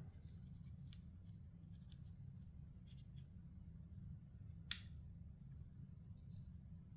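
Faint light ticks and handling noises of a Glock pistol frame being wiped down with an oiled cloth patch, over a steady low hum. The sharpest tick comes a little under five seconds in.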